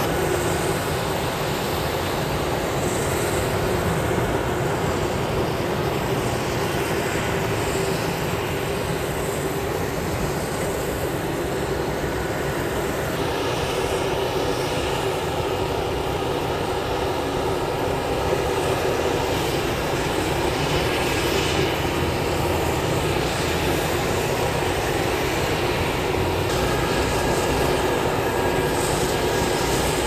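Steady engine drone with a constant low hum, running without a break; the upper hiss shifts slightly about a third of the way in.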